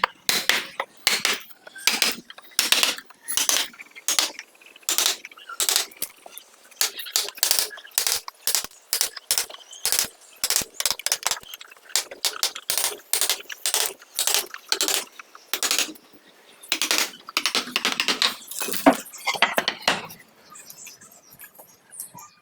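A chisel driven into wood by repeated mallet blows: sharp, ringing strikes about two a second, sometimes in quicker runs, thinning out near the end.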